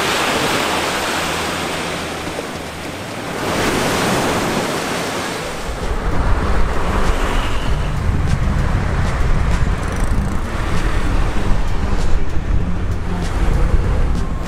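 Ocean waves washing up on a beach, swelling twice, for about the first five seconds. Then, about six seconds in, a gusty low rumble of wind on the microphone while riding along a road.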